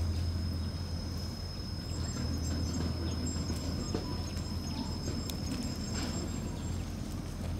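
Shiba Inu puppies' paws scuffing faintly on gravel over a steady low hum, with a thin high-pitched tone that stops about six seconds in.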